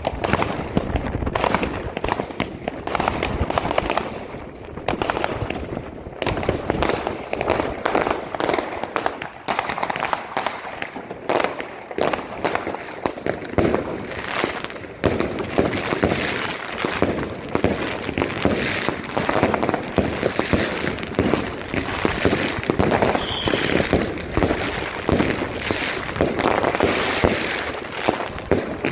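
Fireworks going off in a dense, continuous barrage of rapid bangs and crackles, thinning briefly around four seconds in and building up again in the second half.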